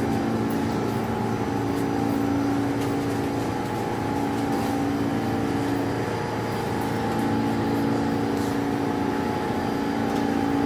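A New York City subway train standing at a station platform with its doors open, giving off a steady mechanical hum and whir. A low hum swells in and out every couple of seconds over a fainter higher steady tone.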